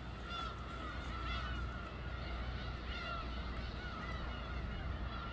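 Many birds calling at once: short, repeated, overlapping calls over a steady low rumble.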